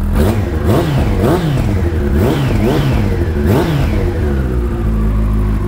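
Yamaha R1 (2002) 998 cc inline-four sport bike engine revved in quick blips from idle, about six rises and falls in pitch, then dropping back to a steady idle about a second before the end. The engine has 100,000 km on it and has never been opened.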